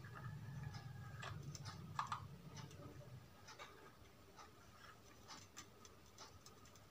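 Faint small clicks and scratches of a tool tip and wires being handled on a CRT TV circuit board, with a low hum through the first three seconds or so.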